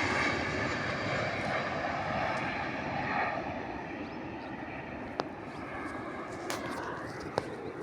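Airliner's engine and rushing noise steadily dying down as the plane slows after landing, with a couple of faint clicks near the end.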